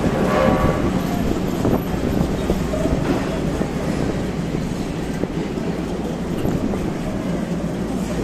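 A train running past on the rails, a steady noise that holds without a break.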